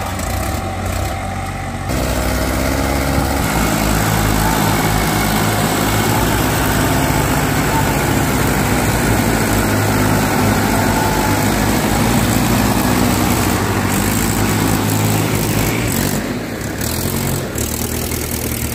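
Diesel tractor engines, a Mahindra and an Eicher 380, working hard under load as the stuck Eicher is dragged out of mud. The engine note rises about two seconds in and eases off a couple of seconds before the end.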